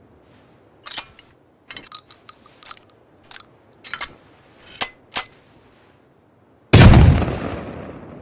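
Handmade double-barrel shotgun: a run of about eight short sharp clicks as the gun is handled, then about two-thirds of the way in a loud shot that echoes and dies away slowly.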